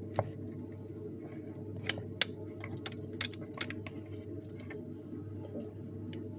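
Scattered light clicks and crinkles from hands handling a small paper carton, over a steady low room hum.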